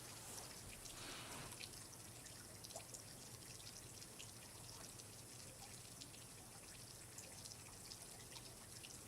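Faint water dripping and trickling: many small irregular drips over a soft steady hiss.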